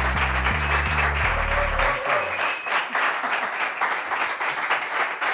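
Audience applauding, with music over it that has a steady, low bass line; the music stops about two seconds in and the clapping goes on.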